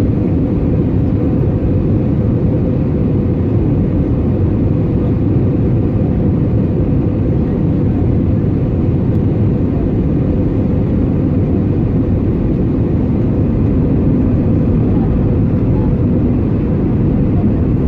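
Airbus A320neo cabin noise during descent: the steady rumble of engines and airflow, with a faint steady hum, unchanging throughout.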